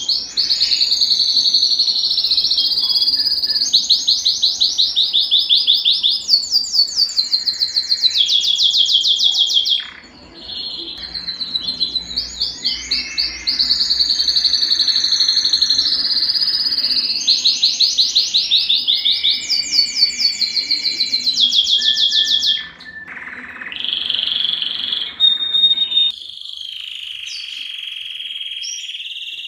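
Male domestic canary singing long phrases of fast, high trills and rolls, each a rapid run of repeated notes. There are short breaks between phrases, and the song turns steadier and quieter near the end.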